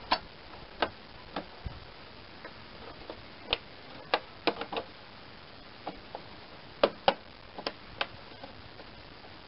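Sharp, irregular plastic clicks and taps as a Craftsman lawn tractor's plastic headlight cover and grille are pressed by hand against the metal hood, working the clips back into place.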